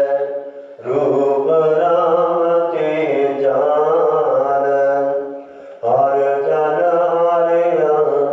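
A man's voice chanting Sikh scripture (Gurbani) in long, drawn-out phrases. He pauses for breath briefly about half a second in and again just after five seconds.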